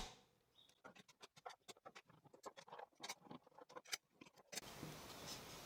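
Faint, scattered clicks and scrapes of clamps being released and taken off a glued-up wooden block, followed by a soft hiss near the end.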